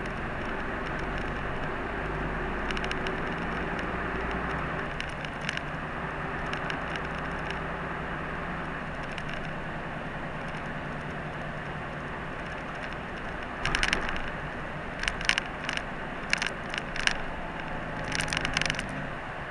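Route bus heard from inside the cabin: steady engine hum and road noise while driving. In the second half, bursts of irregular clicking rattles join in, several times.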